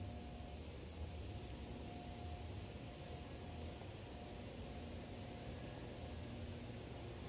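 Faint outdoor background: a steady low hum and haze, with a few small, high bird chirps scattered through it.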